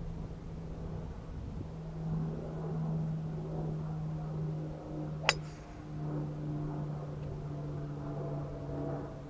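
Golf cart running with a steady hum that shifts slightly in pitch, and a single sharp crack about five seconds in.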